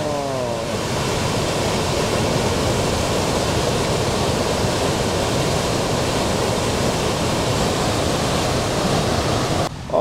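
The Mekong pouring over Khone Phapheng Falls: a steady, unbroken rush of falling water that cuts off suddenly near the end.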